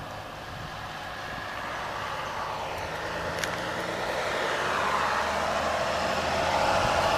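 Engine of a Mercedes-Benz flatbed truck carrying vehicles, running steadily as it drives slowly toward the listener, growing louder.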